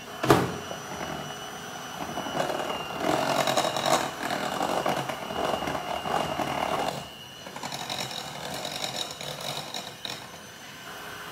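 Electric hand mixer running, its beaters whirring through thin chocolate cake batter in a glass bowl as the hot water, the last ingredient, is beaten in. A sharp knock just after the start; the sound is louder for a few seconds in the middle, then eases off.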